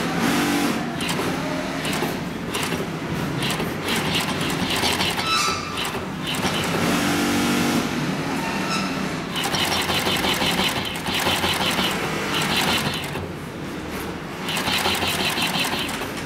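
HIGHTEX twin-needle post-bed sewing machine stitching thick decorative thread through sofa leather. It runs in bursts with short pauses, the clearest runs in the second half, over a steady factory hum.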